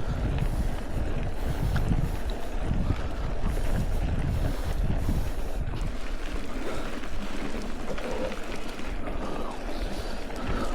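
Wind buffeting the microphone of a chest-mounted action camera while riding a mountain bike, a steady rushing noise with heavy low rumble that eases a little over halfway.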